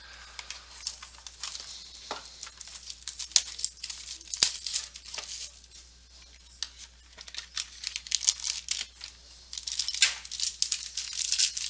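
Trading card pack wrappers crinkling and tearing as packs are opened, with many small sharp clicks and rustles from the cards and wrappers being handled.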